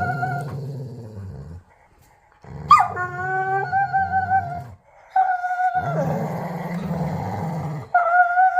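A dog play-growling during tug-of-war: a low rumbling growl with a high, steady whine over it. It comes in several bouts broken by short pauses, and one bout opens about 3 seconds in with a brief rise and fall in pitch.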